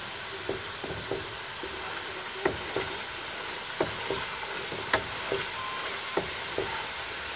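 Coconut milk frying in an aluminium wok as it renders into oil, stirred with a wooden spatula: a steady sizzle with sharp clicks about once a second. The milk has separated into its own oil, the stage where latik begins to form.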